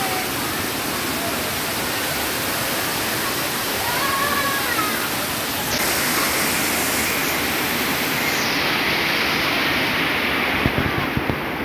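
Rushing water of a spring-fed mountain river tumbling over rocks: a steady, loud hiss. A few sharp knocks come near the end.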